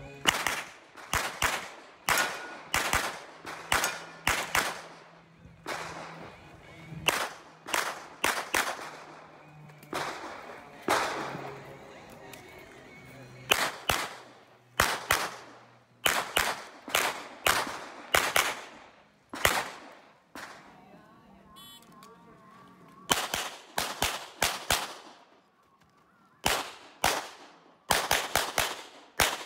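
CZ Shadow 2 pistol firing rapid shots, mostly in quick pairs, in strings broken by short pauses and one longer lull a little past the middle.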